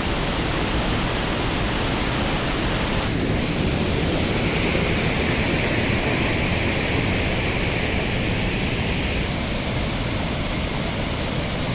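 Steady rushing of a mountain creek's rapids and small falls, a dense, even roar of water with a deep rumble underneath.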